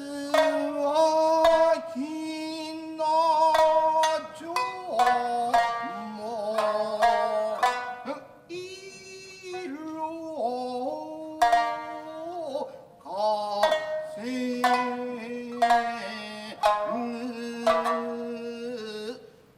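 Tokiwazu music: shamisen plucking with long, drawn-out sung notes that bend in pitch at their ends.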